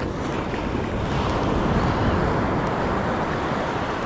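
Wind on the microphone mixed with surf washing up a sandy beach, a steady noise that swells a little louder around the middle.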